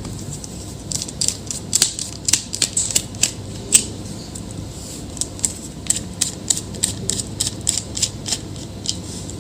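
Irregular small clicks and taps, a few a second, of hand tools working on a laptop's internals while the battery is being removed.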